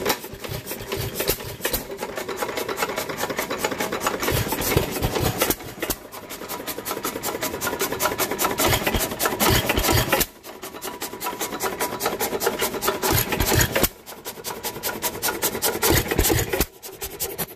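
Early-1900s hit-and-miss engine running, a fast, steady mechanical clatter from its crank and valve gear, with a few brief sudden dips in loudness.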